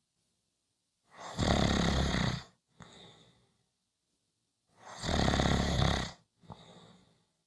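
A person snoring in slow, even cycles: two loud, rough snores about three and a half seconds apart, each followed by a softer breath.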